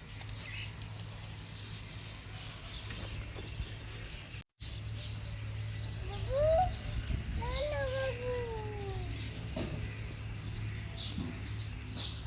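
A farm animal's call rising and then falling over about two seconds, near the middle, over a steady low hum.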